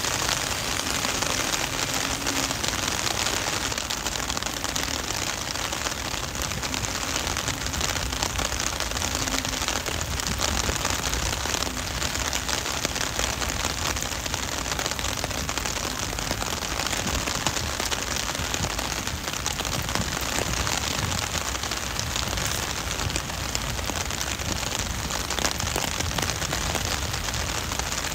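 Heavy rain falling steadily on pavement and surrounding surfaces, a dense, even patter of drops with no let-up.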